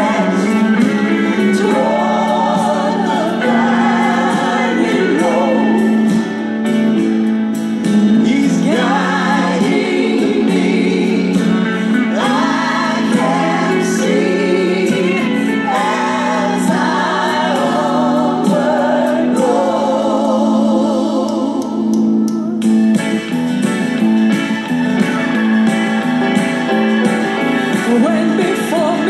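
Gospel vocal trio, a man and two women, singing in close harmony with vibrato over a live band of drums, bass guitar and keyboard.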